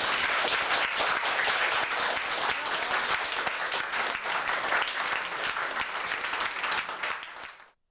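A small audience clapping steadily with their hands. The applause stops abruptly near the end.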